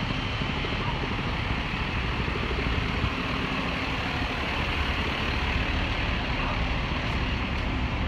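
Fire truck diesel engines idling: a steady, constant low rumble.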